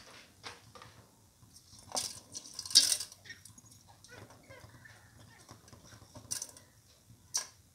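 Steel slotted spoon clinking and scraping against a steel pressure cooker pot of rice and water, a handful of scattered sharp knocks, the loudest about three seconds in.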